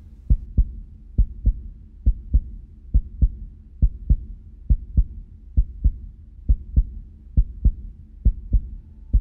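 Heartbeat sound effect: low, loud paired thumps in a steady slow rhythm, about one lub-dub pair a second.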